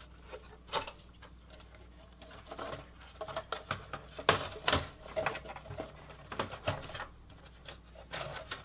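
Motherboard being fitted back into a Dell OptiPlex 780 desktop's metal case: scattered clicks and knocks of the board against the chassis, the loudest pair a little past the middle.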